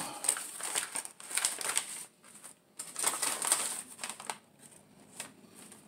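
Plastic shipping mailer and bubble-wrap packing crinkling and rustling as they are pulled open and handled, in two bouts with a brief pause about two seconds in, then only faint rustles.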